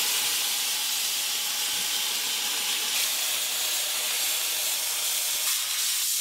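Dry sandblaster blasting garnet abrasive against pitted steel plate, a steady hiss of air and grit. It is stripping rust out of corrosion pits back to bare metal, ready for pad welding.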